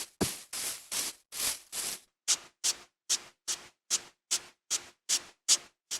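Footsteps on grass blocks from the game Minecraft: an even run of short rustling crunches, about two and a half a second. About two seconds in they turn shorter and crisper.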